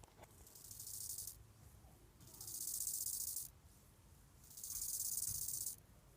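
Grasshopper stridulating: a high, dry hissing buzz in three bursts of about a second each, repeating roughly every two seconds, the first one swelling in.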